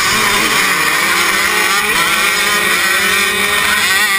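A pack of 85cc two-stroke motocross bikes at full throttle off the starting line, including the rider's own bike close by. Several engines are heard at once, their pitch rising and falling.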